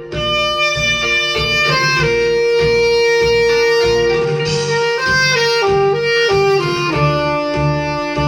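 Instrumental music played through a repaired portable speaker as a sound test: a melody of long held notes stepping in pitch over a steady bass beat.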